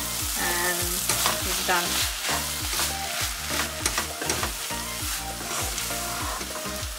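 Fried rice sizzling in a stone-coated non-stick wok in its last minute of frying, stirred and turned with a wooden spatula: irregular scrapes of the spatula against the pan over a steady sizzle.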